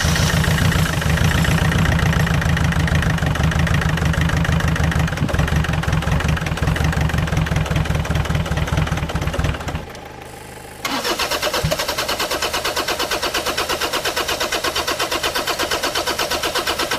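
Land Rover Freelander's 2.0 L-series four-cylinder turbodiesel being cranked over on its starter with a rhythmic chug, failing to start. It stops for about a second near the middle, then cranks again. The no-start is down to air leaking into the fuel pipes.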